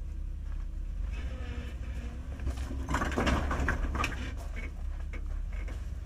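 Jeep Grand Cherokee's engine working under load as it crawls up a steep rock ledge, over a steady low rumble. Scattered clunks and scrapes of tires and underbody on rock are loudest about three to four seconds in.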